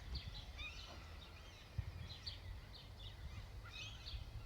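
Several small birds chirping and twittering in quick, overlapping calls, over a steady low rumble.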